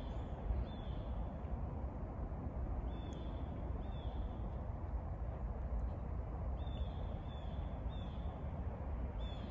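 A bird calling outdoors: about seven short, high chirps scattered in twos and threes, over a steady low background rumble.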